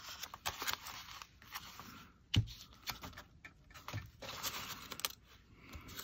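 Paper pages of a junk journal being turned and handled: rustling and small clicks of paper and hands on the table, with one sharp knock about two and a half seconds in.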